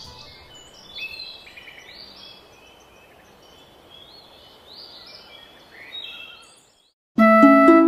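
Birds chirping and twittering in quick short calls over a faint steady hiss, as cartoon background ambience. Near the end it breaks off into a moment of silence, and then a loud, bright children's jingle starts.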